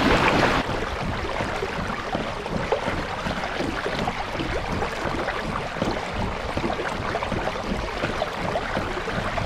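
Water and wind rushing around a small fishing boat on the water: a steady noise with many small splashes and ticks throughout, a little louder for the first half second.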